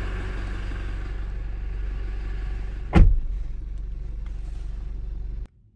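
Toyota Prado turbodiesel engine idling steadily, heard from the driver's seat. About three seconds in, the driver's door shuts with a single loud thud. The idle cuts off abruptly near the end.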